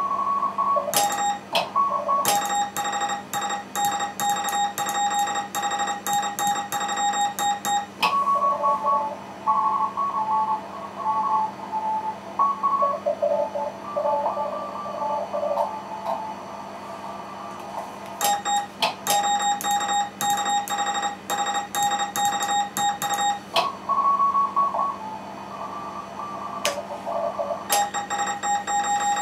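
Morse code (CW) from a ham radio contest station. Stretches of tone keyed at one steady pitch, with key clicks, are the operator's own sending. They alternate with stretches where several other stations' Morse comes through the receiver at different pitches, overlapping. A faint steady low hum runs underneath.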